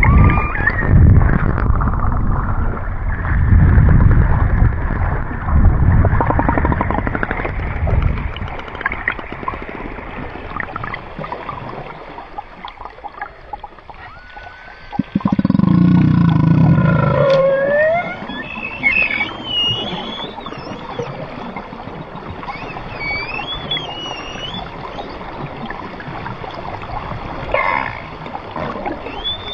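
Orcas (killer whales) vocalizing while hunting: rising and falling whistled calls and clicks. There is loud low rumbling through the first eight seconds and again about fifteen seconds in.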